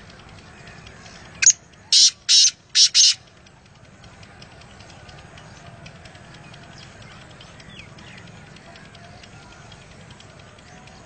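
Black francolin (kala teetar) calling once: a short sharp note, then four harsh, grating notes in two quick pairs.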